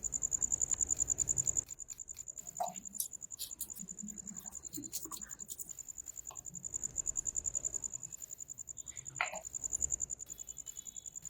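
A cricket trilling steadily in a high, rapidly pulsing tone, with scattered light clicks and knocks.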